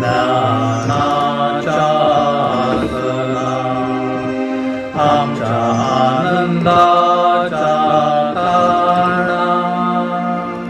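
Slow Marathi devotional singing to the Virgin Mary, a chant-like melody with long held notes.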